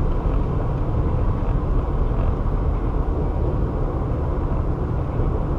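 Steady road and tyre noise of a car driving at highway speed, a low, even rumble.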